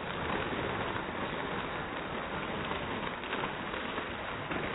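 A large paper bag of tortilla chips being squeezed and crushed in the hands: a continuous mass of crinkling bag and crunching chips with small crackles throughout.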